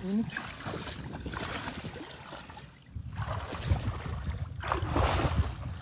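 Wading through shallow water: legs sloshing and splashing in uneven surges, with wind rumbling on the microphone.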